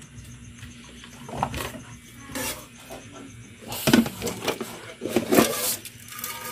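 Handling noise from weighing the catch on a spring dial kitchen scale: several short rustles and knocks as the catch and its container are shifted on and off the scale's pan, the loudest a cluster a little past the middle.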